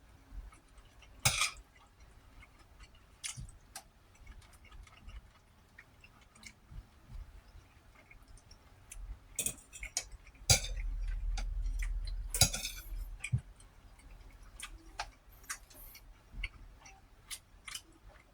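Eating sounds: scattered clicks and light clinks with quiet chewing, several louder sharp clicks, and a low rumble lasting about two seconds just past the middle.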